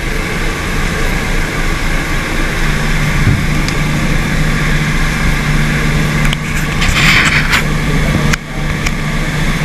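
Glass-bottom tour boat's engine running steadily, heard from inside the hull below the waterline as a constant low hum under a noisy drone. There is a short hiss about seven seconds in.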